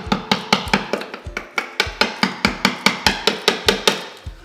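Hammer rapidly tapping a chisel-like hand tool into cured thinset mortar, about five sharp blows a second, chipping the mortar away.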